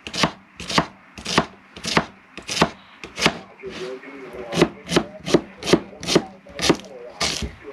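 Knife chopping vegetables on a chopping board in a steady series of sharp strokes, about two a second, quickening a little in the second half.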